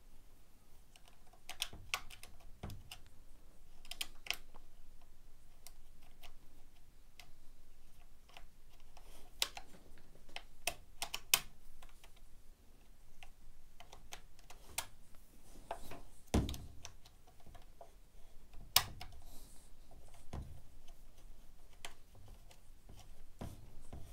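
Irregular small clicks and knocks of metal and plastic parts being handled and pressed into the plastic housing of a Makita DUC356 cordless chainsaw as the chain-brake connecting plate and its spring are fitted, with a few louder knocks in the second half.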